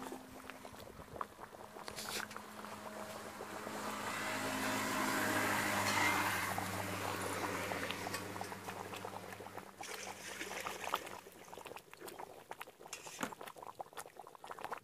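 Goat-head gravy boiling hard in a large open pan, with a steady scatter of small bubble pops. A low motor hum swells through the middle, loudest about six seconds in, and fades out after about eleven seconds.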